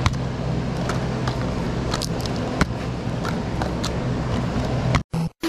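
Steady outdoor background noise with a constant low hum and a few light clicks. Near the end it cuts off abruptly into a choppy, stop-start electronic music beat.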